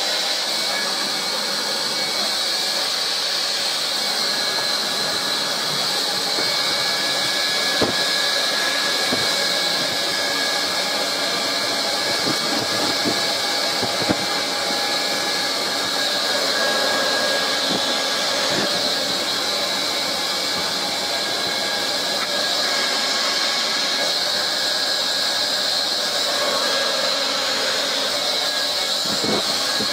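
Plastic welder blowing steadily with an even rushing hiss while plastic filter-box panels are tacked together, with a couple of light knocks.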